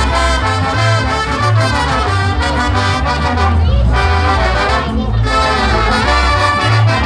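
Brass band music over a steady, repeating low beat.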